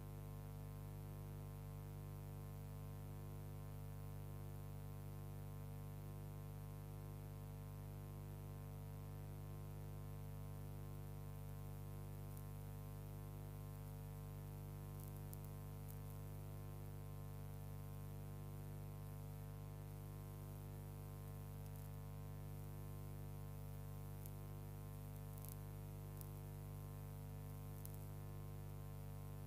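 Steady electrical hum with a stack of overtones, unchanging throughout, with a few faint clicks in the second half: playback or transfer hum on a stretch of old cine film soundtrack that carries no location sound.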